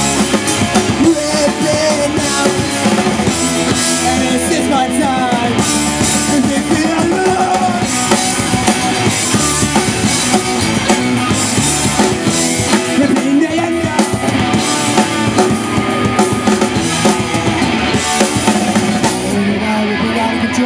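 Punk rock band playing live: electric guitars, bass guitar and a drum kit going at full volume without a break.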